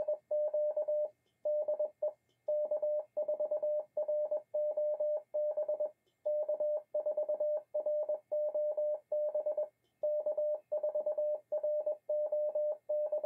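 Morse code sidetone from a ham radio transceiver: a steady tone of about 600 Hz keyed on and off in dots and dashes with short pauses between characters, sent by the radio's built-in memory keyer. It is the sidetone of a CW call being transmitted over and over for the Reverse Beacon Network to pick up.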